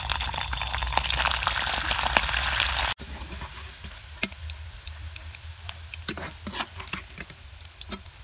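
Chicken pieces frying in hot oil in a steel kadhai, a dense crackling sizzle. About three seconds in it drops sharply to a quieter sizzle with scattered clicks, as a slotted metal spoon lifts the fried pieces out.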